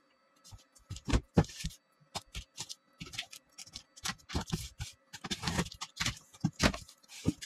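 Box cutter slitting packing tape and cardboard along the seams of a large shipping carton: irregular sharp clicks and short scratchy strokes, with a few longer scraping stretches in the second half.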